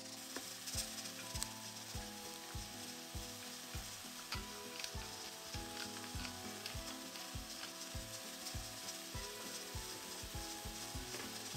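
Food frying in a hot pan, a steady sizzle with fine crackling, with a utensil working the food.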